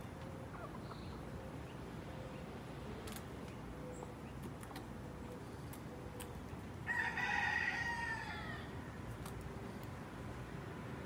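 A rooster crows once, about seven seconds in: a single call under two seconds long that drops in pitch at its end.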